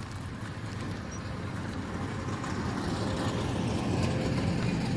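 Low engine rumble of a passing motor vehicle, growing steadily louder and peaking near the end.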